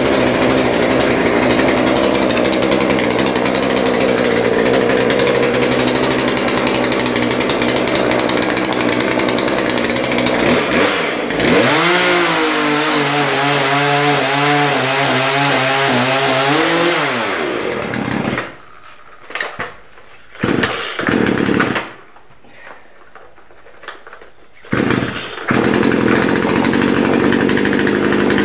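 Two-stroke chainsaw running hard, cutting firewood held in a vise. Partway through, the engine pitch wavers up and down as the throttle changes. For several seconds the sound then drops away, broken by short loud bursts, before the saw runs loud and steady again near the end.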